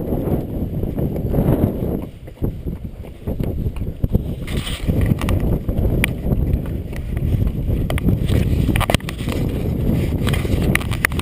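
Strong wind buffeting the microphone in a heavy, uneven rumble. From about four seconds in, a mule's hooves clip-clop with sharp clicks on the rocky trail.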